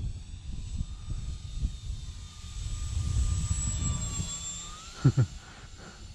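Electric motor and propeller of a SIG Four Star 20EP RC plane whining as it flies past overhead, the whine bending in pitch as it passes, over wind buffeting the microphone. Two short thumps about five seconds in.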